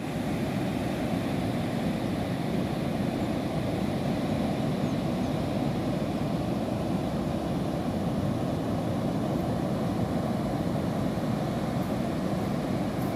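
Rough sea surf breaking onto the shore and against large boulders: a steady, unbroken rushing of waves with no single crash standing out.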